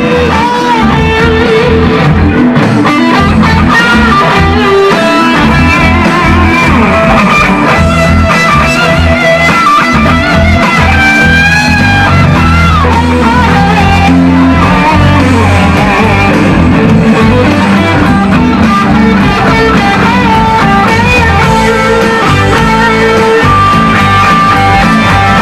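Live rock band playing an instrumental passage, with an electric guitar to the fore over bass guitar and drums.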